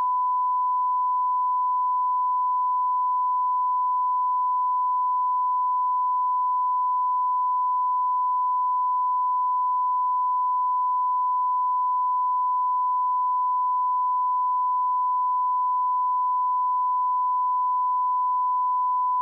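Steady 1 kHz sine-wave line-up tone of a broadcast master tape, starting abruptly and holding one pitch and level without a break.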